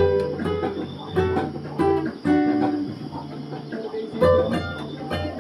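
An acoustic guitar being strummed, chords ringing out between strong strums.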